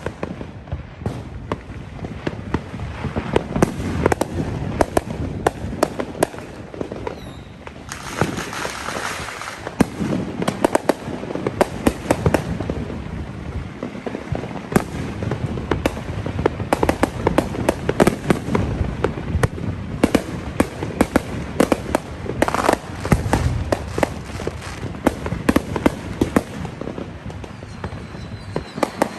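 Fireworks and firecrackers going off nonstop: dense rapid crackling and popping with louder bangs scattered throughout, and a burst of hissing about eight seconds in.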